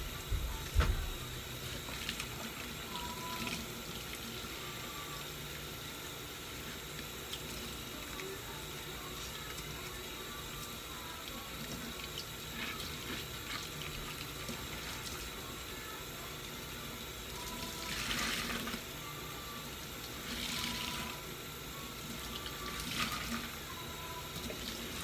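Kitchen tap running into a stainless-steel sink while a sponge is rinsed and squeezed under the stream, with a steady rush of water and louder splashes a few times. There is a knock about a second in.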